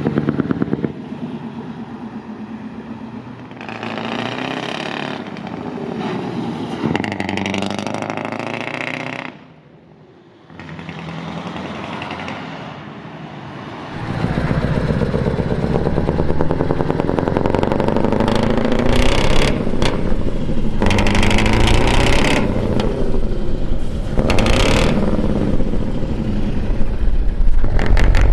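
Scania 164L's 480 V8 diesel with an open exhaust running as the truck drives past, its exhaust pulsing rapidly and the revs rising and falling. It drops away briefly about ten seconds in and comes back louder for the second half, when it is loudest near the end.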